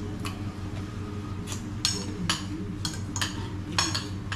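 Cutlery clinking against plates and glassware at a dinner table, several short sharp clinks mostly in the second half, over a steady low background hum.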